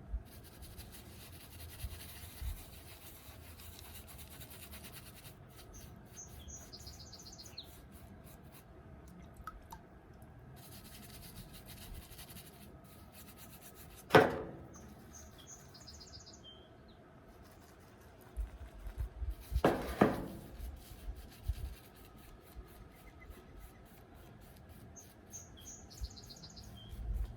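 Freshly honed axe blade scraping through beard stubble in light rasping strokes. A bird gives a short high chirping call three times, and two sharp knocks stand out, the louder about halfway.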